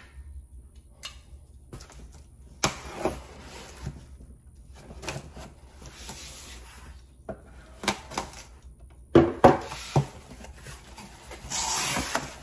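A folding knife slitting the packing tape on a cardboard box and the box being handled and opened: scattered clicks, scrapes and rasping cuts. The loudest cluster comes about nine seconds in, and a longer scraping rasp near the end as the cardboard flaps are pulled open.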